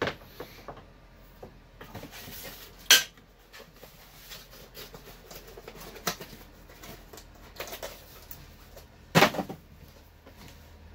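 Parts and packaging from a router table kit being handled: small clicks and clatter with a few sharper knocks, the loudest near the start, about three seconds in and about nine seconds in, and some light rustling.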